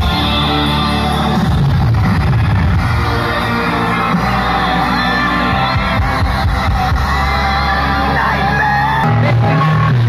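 Loud music with a singing voice and heavy bass, played through a large outdoor sound system being tested.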